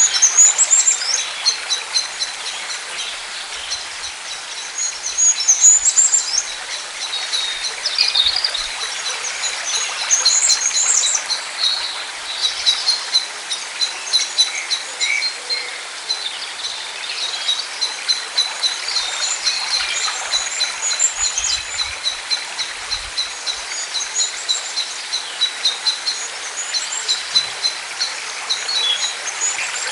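Several birds chirping and singing, with long runs of quick, evenly spaced high chirps and short whistled phrases, over a steady outdoor background hiss.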